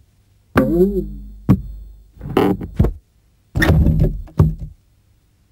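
Cartoon soundtrack: a sound effect whose pitch bends up and down over a deep rumble, a sharp knock, then two short wordless vocal exclamations from a cartoon character.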